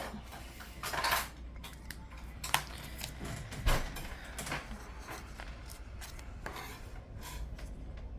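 Desk handling of a planner and stationery: scattered small clicks and taps with short paper rustles, the sharpest clicks about two and a half and three and a half seconds in.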